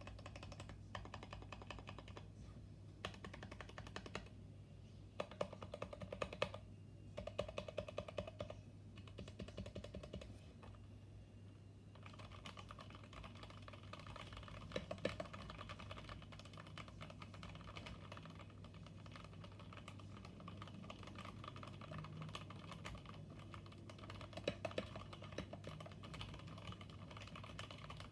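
Typing on a Kemove Shadow mechanical keyboard with lubed switches: a rapid patter of keystrokes. The typing comes in short bursts with pauses for the first twelve seconds or so, then runs on continuously.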